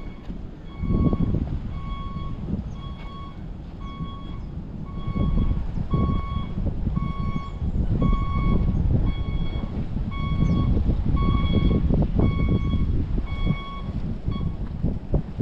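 A vehicle's reversing alarm beeping steadily about twice a second, stopping shortly before the end, over a loud, uneven low rumble.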